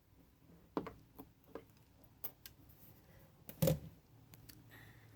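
Scattered clicks and knocks of small metal and plastic scrap pieces being handled and set down, about six separate strikes with the loudest about three and a half seconds in.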